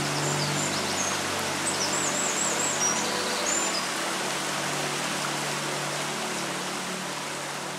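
Steady rushing of river water with a few high bird chirps in the first few seconds, easing slowly quieter near the end.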